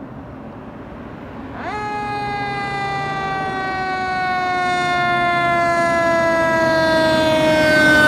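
E-One fire engine's siren wailing as the truck approaches: its pitch jumps up sharply about a second and a half in, then slides slowly downward while growing louder, over the low rumble of the truck.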